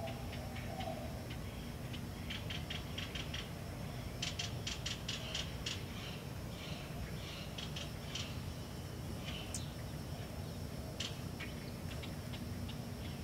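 Irregular runs of quick, dry clicks and rattles over a steady low hum, densest a few seconds in and thinning to scattered single ticks later.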